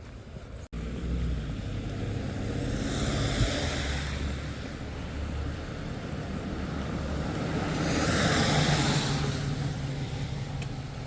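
Road traffic outdoors: two vehicles pass one after another, each swelling and fading, over a steady low rumble.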